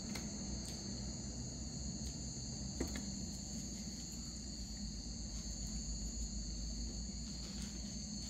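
A steady high-pitched chorus of crickets, with a single faint click a little before three seconds in.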